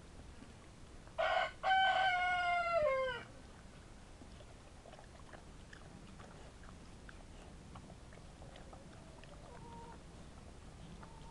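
A rooster crowing once, a little over a second in: a short opening note, then a longer loud call that falls in pitch at its end. Faint scattered clicks follow.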